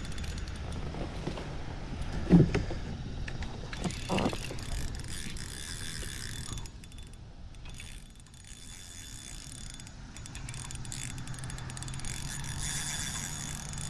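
Fishing reel being cranked, a steady clicking, geared whir, with two dull knocks about two and four seconds in. Cicadas drone faintly behind it.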